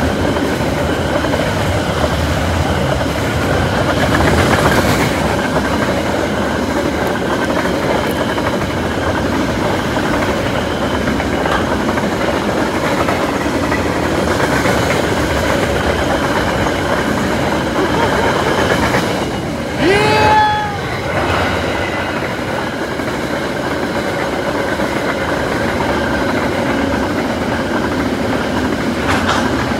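A fast train passing close by: a loud, steady rumble and rattle of wheels on the rails throughout. About two-thirds of the way through, a short rising pitched sound cuts through.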